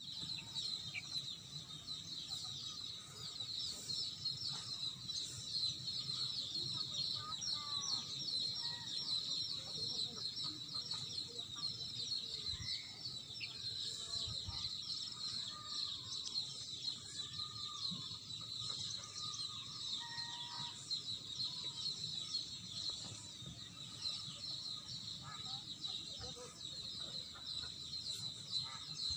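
Outdoor ambience: insects shrilling steadily at a high pitch throughout, with scattered short bird calls in the middle part.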